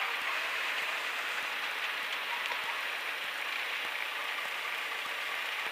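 Steady, hiss-like cockpit noise of a Cessna 152 rolling out on the runway after landing. It cuts off abruptly at the very end.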